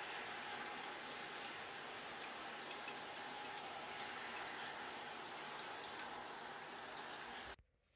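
Micro-mist nozzles of a terrarium rain system spraying: a steady watery hiss with scattered small drips, which cuts off suddenly near the end as the misting stops.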